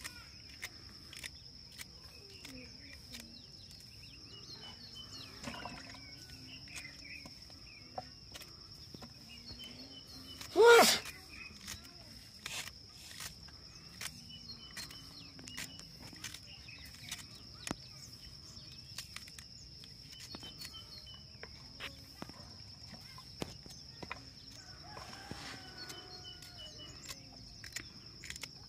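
Knife slicing fresh okra pods by hand, a run of small sharp clicks as the blade snaps through each pod and the rounds drop into a metal basin. A steady high insect whine and faint bird chirps carry on underneath, and one loud, short pitched sound stands out about a third of the way through.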